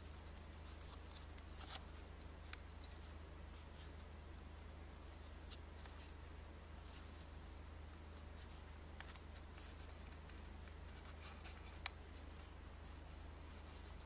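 A folded paper banknote crinkling and crackling as fingers press and crease its folds: faint scattered rustles with a few sharper crackles, the sharpest near the end, over a steady low hum.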